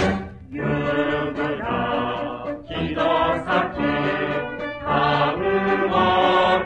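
Mixed choir singing a Japanese song in held phrases, backed by a high-school brass band, played from a 1972 flexi-disc record.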